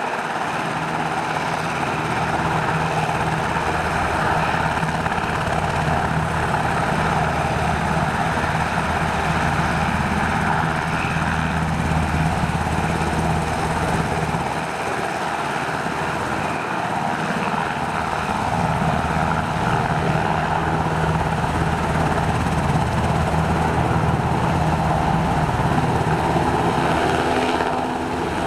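Sikorsky S-70 Black Hawk helicopter running with its main rotor turning: a steady, loud mix of twin-turboshaft turbine whine and rotor noise. It grows louder in the second half as the helicopter powers up and lifts off near the end.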